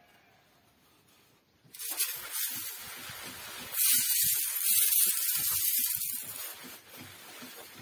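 A spray nozzle hissing as it mists water over trays of sprouting wheatgrass fodder. It starts about two seconds in, grows louder for a few seconds in the middle, then fades away near the end.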